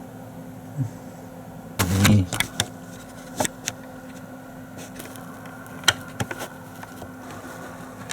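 A steady low hum with a few sharp clicks and knocks scattered through it.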